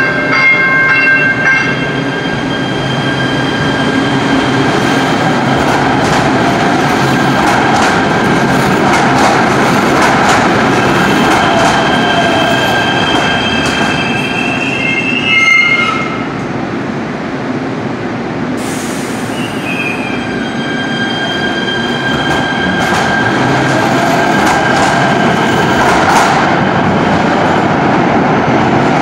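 Light rail train running through a subway tunnel with a steady rumble. Its wheels squeal in high, steady tones on and off, and a brief loud hiss comes about two-thirds through.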